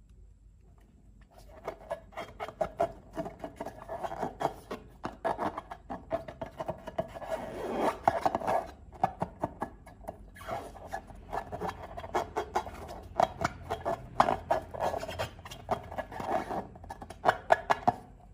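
Slime being stirred and squished by hand, a dense run of sticky clicks and crackles that starts about a second in and stops just before the end.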